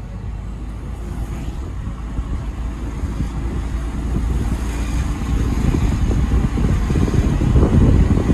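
Low, uneven rumble of a vehicle driving along a city street, growing louder over the last few seconds.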